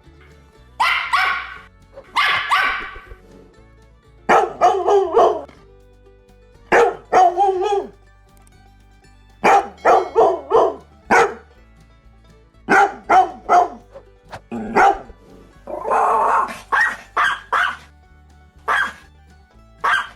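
Dog barking repeatedly, in quick runs of two to five barks with short pauses between, over background music.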